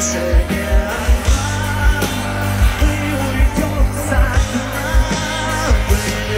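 A rock band playing live through a large outdoor festival sound system, recorded from within the crowd: a regular thudding kick drum under sustained chords and a moving melody line.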